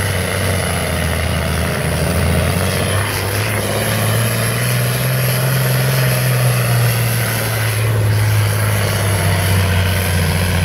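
Diesel engine of a green John Deere farm tractor running hard under full load as it drags a weight-transfer pulling sled: a loud, steady, heavy engine drone that climbs a little midway and eases toward the end.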